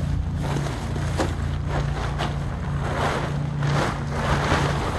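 Tent fabric rustling and flapping as it is pulled from its bag and shaken out, the rustling heaviest in the last two seconds. A steady low hum runs underneath.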